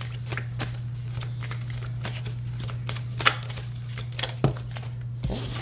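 A deck of reading cards shuffled by hand: the cards flick and slap together in quick, irregular clicks, with one sharper snap about three seconds in. A steady low hum runs underneath.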